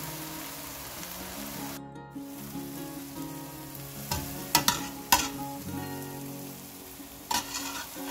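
Frying food sizzling in a wok, with sharp clinks of a slotted metal spoon against the stainless steel wok as cooked rice is spooned in, a cluster about four to five seconds in and again near the end. Light background music plays underneath.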